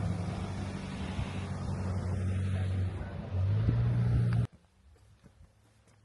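Vehicle running, heard as a steady low engine drone with road noise. It steps up in pitch and gets louder a little past three seconds, then cuts off abruptly about four and a half seconds in, leaving only faint background sound.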